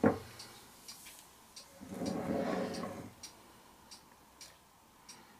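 A freshly poured acrylic painting board being handled and tilted over a plastic drop sheet: a sharp knock as it is set down, then a brief scraping rustle about two seconds in. Faint light ticks recur about twice a second.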